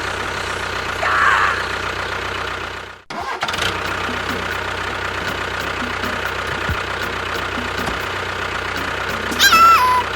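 An engine running steadily, cutting out for a moment about three seconds in and then carrying on. Near the end a short, loud pitched sound falls in pitch.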